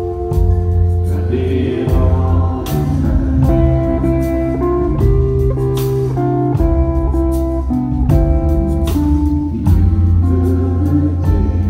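Live band music played through a concert PA, an electric guitar carrying the melody, with voices singing at times.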